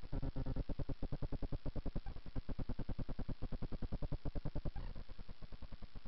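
Background electronic music with a fast, even pulsing beat; it gets quieter near the end.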